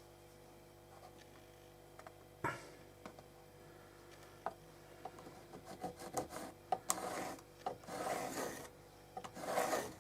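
Marking out lines on leather: a sharp knock about two and a half seconds in, scattered small clicks, then short scratchy strokes of a marking tool drawn across the leather in the last few seconds.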